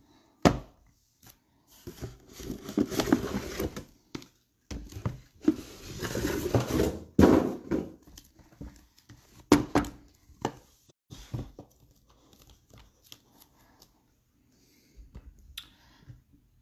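Cardboard trading-card hobby boxes being handled on a table: rustling and scraping as they are slid and shuffled, with several sharp knocks as they are set down. The last few seconds are quieter, with only small clicks.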